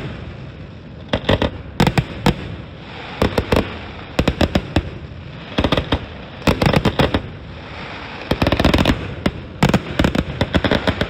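Fireworks finale: volleys of aerial shells bursting in quick clusters about once a second, each a rapid string of sharp cracks, with a low rumble between volleys.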